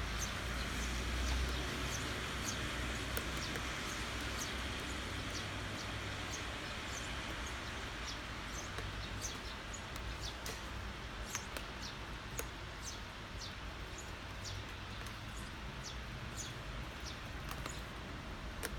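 Steady rain falling, with frequent short, high-pitched ticks of drops striking close by, and a low rumble underneath.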